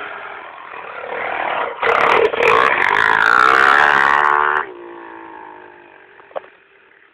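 Small single-cylinder mini dirt bike (pit bike) engine revving hard and rising in pitch for a few seconds as it accelerates. It then drops suddenly to a lower, steady note that fades as the bike rides away.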